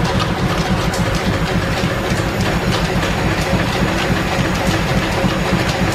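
1925 American 18-inch belt-driven engine lathe running, its spinning chuck, gearing and flat belts making a steady, fast rhythmic clatter.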